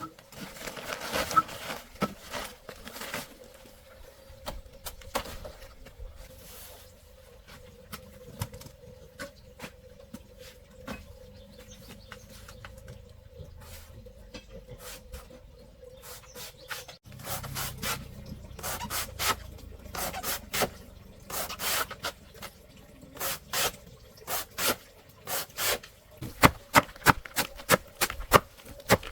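Irregular clicks and knocks with some rubbing and scraping, as from handwork. They are scattered at first, then come quicker and louder from a little past halfway, with a faint steady hum underneath.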